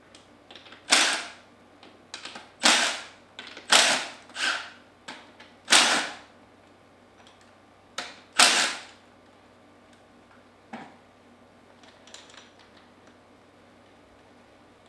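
Cordless impact driver with a socket hammering in about eight short bursts over the first nine seconds, breaking loose the bolts on a Comet P40 diaphragm pump. A couple of faint clicks follow.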